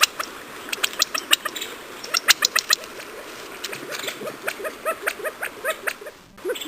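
Animal calls: a dense run of quick, sharp high chirps and clicks over short, lower squeaks repeating about twice a second.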